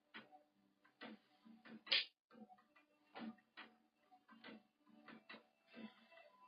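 Faint, irregular clicking and tapping, roughly two or three clicks a second, with one sharper, louder click about two seconds in.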